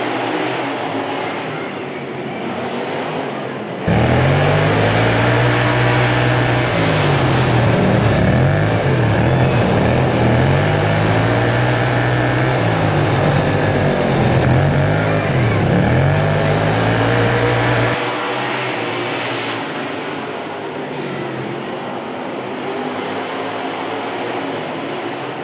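Racing lawnmower engines running on a dirt track. About four seconds in, a single mower's engine is heard close up from on board, loud, its pitch climbing and dropping over and over as it is throttled up and backed off around the laps. After about fourteen seconds it falls back to the more distant, blended sound of several mowers.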